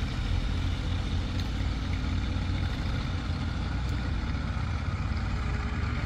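Diesel engine of heavy earthmoving machinery running steadily, mostly low in pitch.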